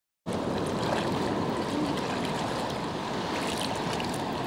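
Shallow seawater lapping and washing, a steady rush of water noise that cuts in suddenly about a quarter of a second in.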